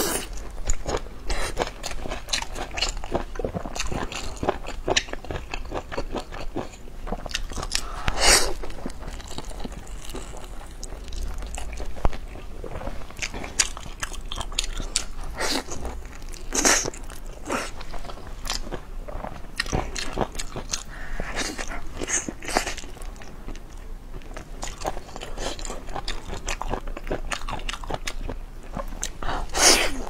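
Biting and chewing a large rice wrap rolled in blanched kelp, with a steady run of small crunchy, wet mouth clicks. A few louder bites stand out at intervals.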